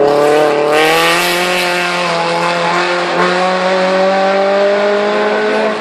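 Race car engine running hard at high, fairly steady revs as the car pulls away up a hill road, with a short noisy burst about a second in.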